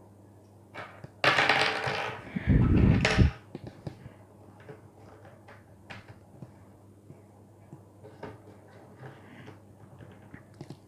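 Plastic speed-cube pieces being handled and pressed into the core: a louder scraping burst about a second in, a heavier knock right after it, then scattered light plastic clicks as edge pieces are pushed into place.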